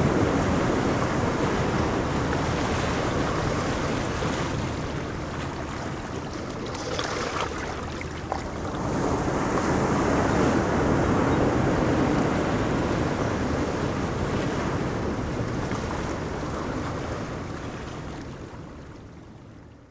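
Ocean surf washing onto a beach, a continuous rush of breaking waves that eases off, swells again about halfway through, then fades out near the end.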